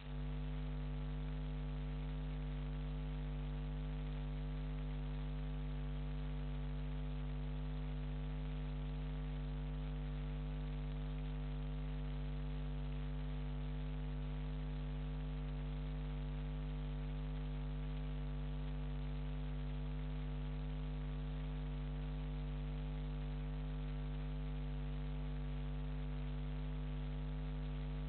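Steady electrical mains hum, a low buzz with a stack of overtones and a faint hiss behind it, unchanging throughout.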